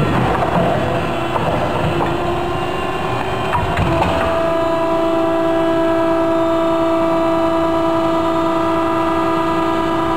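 Hydraulic multi-convolution bellows forming machine running, with clatter and a few sharp clicks at first. About four seconds in, a steady pitched drone sets in and holds.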